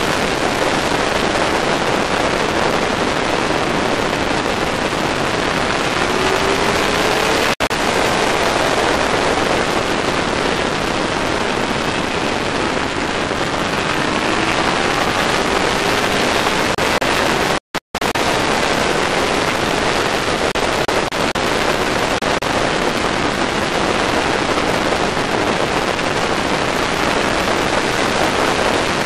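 Heavy wind rush on a Yamaha R6 sport bike at speed, with its inline-four engine note faintly underneath, rising in pitch several times. The audio cuts out briefly twice.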